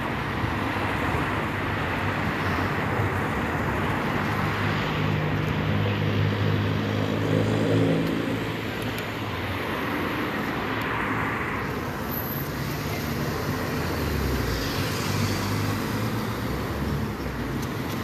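Steady road traffic on a dual carriageway, with cars passing and a deeper engine hum building and peaking about eight seconds in. The pedestrian crossing gives no audible beeping signal.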